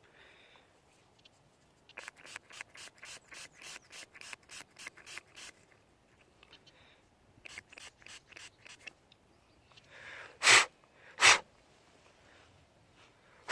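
Mud being scrubbed off a small metal find, short rubbing strokes about three a second in two runs, followed by loud short squirts of water from a spray bottle near the end.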